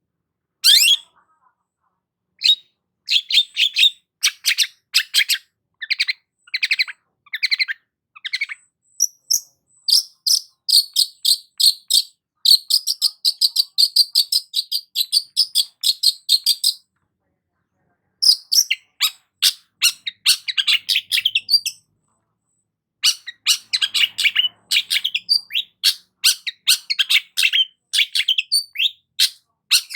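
Long-tailed shrike singing a fast, chattering song in long runs of rapid high notes, broken by two short pauses partway through.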